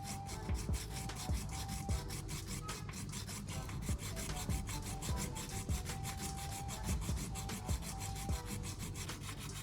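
Sandpaper rubbing on a drill battery pack's circuit board in rapid, steady back-and-forth strokes, cleaning its contacts.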